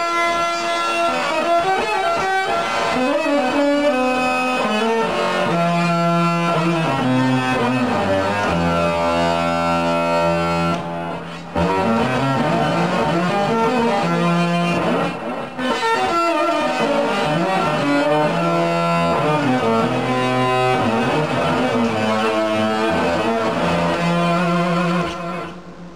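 Electric guitar played fingerstyle without a pick: fast oriental-scale solo runs over low held notes. The playing breaks off briefly twice, about 11 and 15 seconds in, and dies away just before the end.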